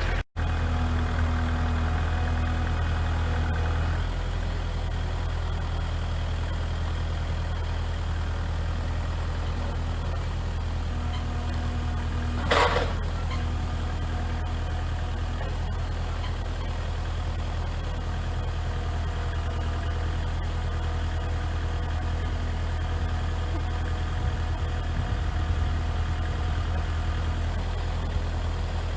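Kubota L4701 tractor's diesel engine running steadily at a low, even speed. Near the middle there is one brief sharp sound over the engine.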